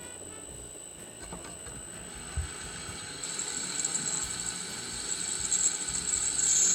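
Electric drill running a 3/16-inch bit through 1/8-inch armor plate steel with a drop of cutting oil on it. A steady high whine runs throughout. The hiss of the cutting builds from about three seconds in and gets louder toward the end, with a single low thump about two and a half seconds in.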